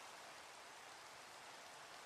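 Faint, steady rain ambience, an even patter with no single drops or thunder standing out.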